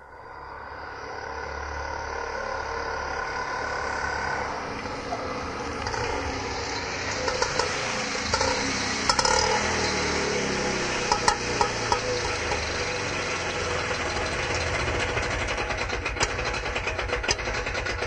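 Auto rickshaw engine running steadily, fading in over the first two seconds, with scattered clicks and rattles from about halfway through.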